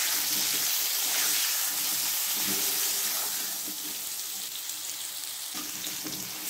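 Cut potatoes frying in hot oil in a karai with turmeric and salt, a steady sizzle that eases slightly in the second half.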